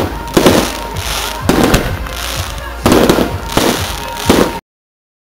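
Aerial firework shells bursting in quick succession: about eight sharp bangs, irregularly spaced, with a steady hiss between them. The sound drops out completely for about the last second.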